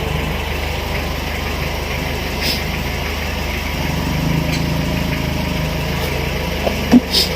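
An engine idling steadily with an even low hum, and a brief loud knock near the end.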